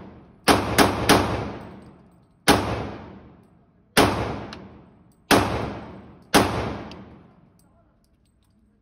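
Seven .40 S&W pistol shots echoing in an indoor range: three quick ones about half a second in, then four single shots roughly every second and a half. Each shot leaves a long reverberating tail.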